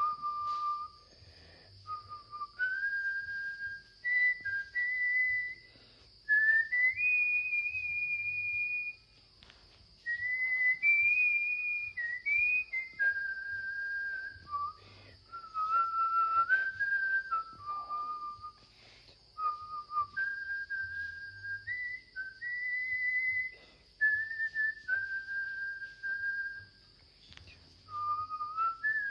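A person whistling a slow tune: held notes that step up and down in pitch, in phrases with short pauses between them.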